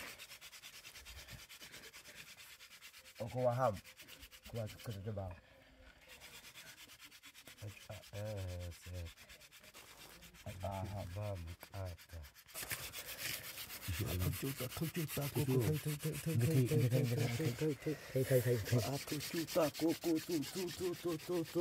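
Fire-making hand drill: a wooden spindle spun back and forth between the palms into a wooden hearth board, wood rasping on wood in quick rubbing strokes. It grows louder over the second half, with a wavering pitched squeal from the spinning wood.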